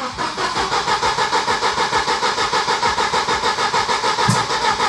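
Rebuilt Volvo B230FK redblock four-cylinder being cranked over by its starter motor on its first start attempt after the rebuild. It turns over in an even rhythm of about eight pulses a second, with one low thump about four seconds in.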